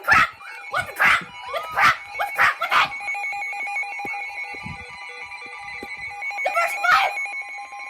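A dog barking and yelping in quick succession for the first three seconds and again near the end, over a steady, rapidly pulsing electronic alert tone.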